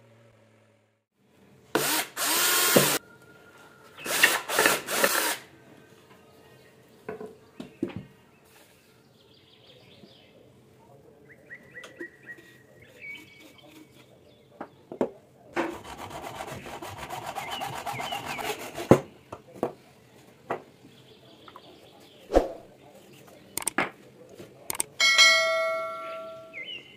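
PVC pipe pieces being worked by hand: two loud bursts of scraping early on, a longer stretch of rubbing about halfway through, and scattered knocks of plastic parts on a tiled table. Near the end a short electronic chime plays with a subscribe-button animation.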